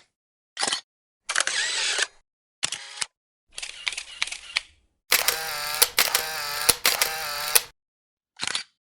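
A series of camera shutter sounds with short silences between them: single shutter clicks, a short cluster of several clicks, and near the middle a long rapid run of clicks with a whining tone underneath, like a camera shooting in continuous burst mode.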